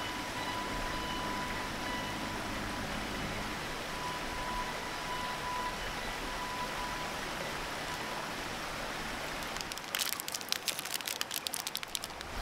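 Mountain stream running over rocks, a steady rushing hiss. About ten seconds in, a rapid crackle of a snack bar's plastic wrapper being handled and torn open joins it.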